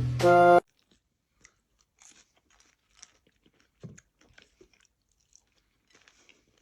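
Music that cuts off abruptly half a second in, followed by faint, scattered crunching: a dog chewing something crunchy.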